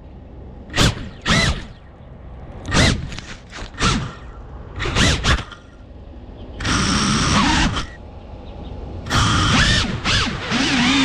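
FPV quadcopter's brushless motors and props on the ground after a crash, giving a string of short, sharp throttle blips. About seven seconds in comes a one-second burst, and about nine seconds in the motors spool up into a sustained whine whose pitch wavers as the drone takes off again.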